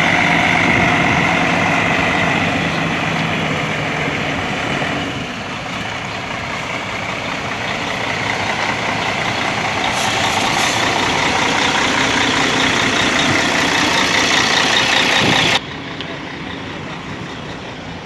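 Heavy diesel bus engine running, with a steady high whine over it; the sound eases off about five seconds in, then builds again before cutting off suddenly to a quieter engine sound near the end.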